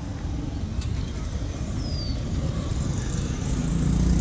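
Steady low rumble of road traffic that grows louder near the end, with one short high chirp about two seconds in.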